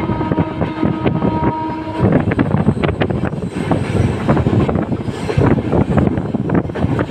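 WAP7 electric locomotive horn sounding one steady note and cutting off about two seconds in, over the rumble of a moving LHB passenger coach. After that the coach's running noise goes on alone, full of rattles and sharp clicks from the wheels on the track.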